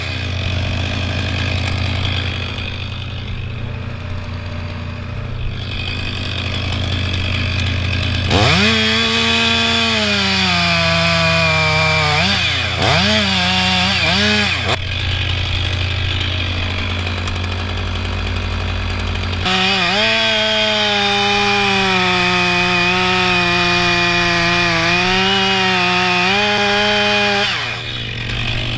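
Stihl MS 500i fuel-injected two-stroke chainsaw cutting through a sycamore trunk. The engine runs quieter for the first several seconds, then revs high from about 8 seconds in, dipping and picking up twice. It revs high again from about 20 seconds, and the pitch falls away near the end.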